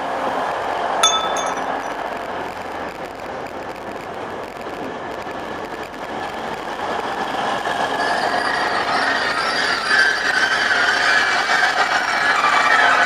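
Grand Central Class 180 diesel multiple unit passing the platform: its underfloor engines run and its wheels roll over the rails, growing louder over the last few seconds. A single sharp metallic clink comes about a second in.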